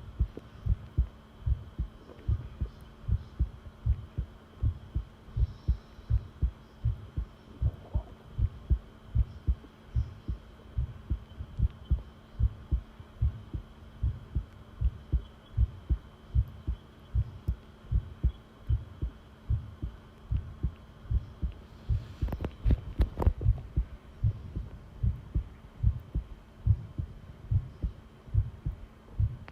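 Close-miked human heartbeat, a steady, regular beat of low thuds over a faint steady hum. About three-quarters of the way through, a short burst of crackling rises over the beats.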